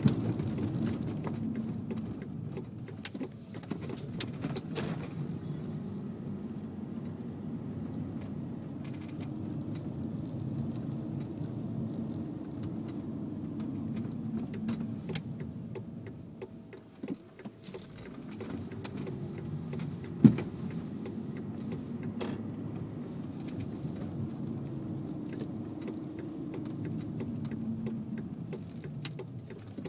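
Cabin road and tyre noise of a 1997 Audi A6 Avant driving slowly. The noise dips as the car slows almost to a stop about halfway through, with a few light clicks and one sharp knock a little later. The knock fits the right-front strut popping that the owner puts down to a worn or shifted strut bearing.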